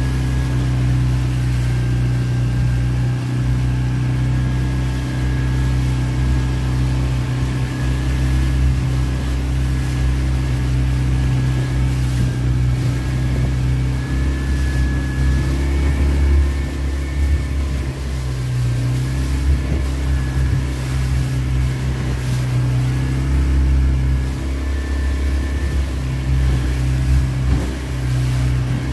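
Outboard motor of an inflatable dinghy running steadily under way, a deep engine hum with a faint high whine above it.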